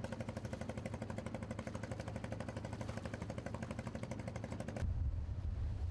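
An engine running with a rapid, even beat. About five seconds in, the sound cuts abruptly to a low rumble of wind on the microphone.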